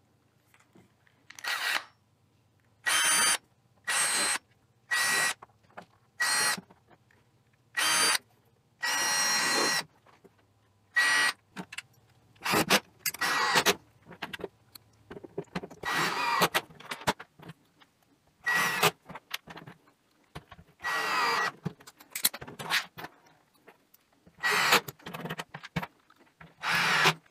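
Cordless drill/driver run in about eighteen short bursts, each under a second, with a high whine, pre-drilling holes and driving 25 mm wood screws through the back panel into a chipboard cabinet carcass.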